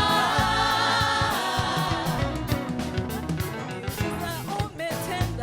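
Live gospel band music: drum kit and bass keep a steady beat while keys fill between sung lines, with voices holding a note for about the first second.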